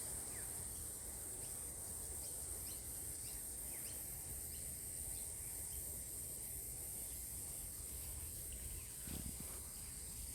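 Steady high-pitched insect chorus, with short falling bird chirps scattered through it over a low background rumble.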